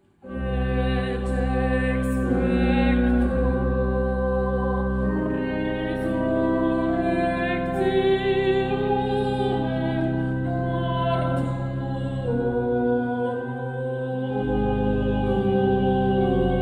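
A soprano singing Latin Mass text with vibrato over sustained church organ chords. The music enters suddenly and loudly about a quarter of a second in, after a brief silence.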